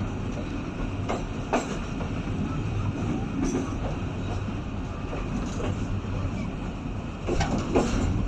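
Passenger train coach rolling along the track with a steady rumble. Sharp wheel clicks over rail joints come in pairs, one pair a little after a second in and another near the end.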